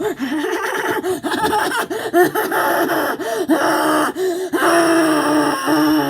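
A boy laughing hard and breathlessly in quick high-pitched bursts, with gasping breaths between them. It ends in one long held squeal that cuts off abruptly.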